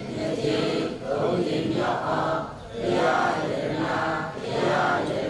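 A seated congregation chanting a Buddhist recitation together in unison, many voices at once. The chant goes in phrases of a couple of seconds, with short breaks between them.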